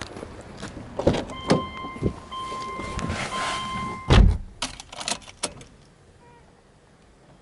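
Car door of a Subaru Legacy Touring Wagon opened with latch clicks, and a steady in-car warning chime sounding for about three seconds, broken by short gaps. About four seconds in the door shuts with a heavy thump, the loudest sound, followed by a few quick light clicks.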